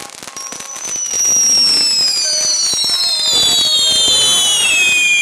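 Ground fireworks: crackling, then a loud whistling firework whose long whistle falls steadily in pitch, growing loud about a second in and going on to the end.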